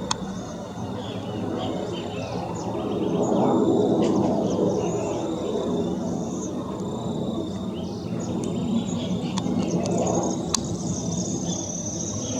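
Cessna Citation V business jet's twin turbofans rumbling overhead, swelling and easing, with a high whine that falls slowly in pitch near the end. Insects buzz steadily and birds chirp throughout.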